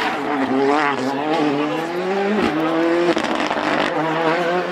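Rally car engine revving hard on a special stage, its pitch climbing and dropping back through gear changes, with a sharp pop about two and a half seconds in.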